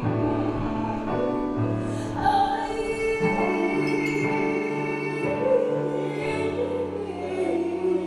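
A song: a voice holding long notes over a sustained accompaniment, with the low notes changing every second or two.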